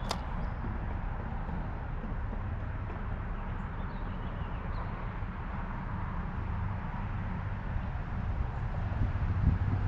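Steady rush of river water with a low rumble underneath, and one sharp click at the very start.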